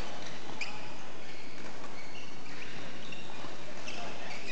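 Badminton rally: rackets striking the shuttlecock with sharp clicks a few times, and players' court shoes squeaking briefly on the hall floor.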